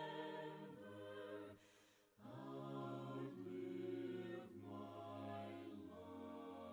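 Soft a cappella choir singing slow, sustained chords, with a short break about two seconds in.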